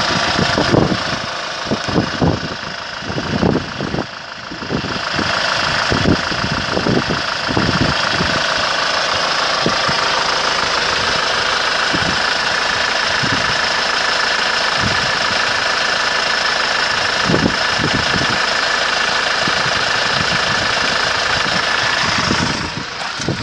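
A 2010 Hyundai iMax van's 2.5-litre four-cylinder turbo-diesel engine idling steadily, heard up close in the open engine bay, with scattered low thumps. The sound falls away near the end.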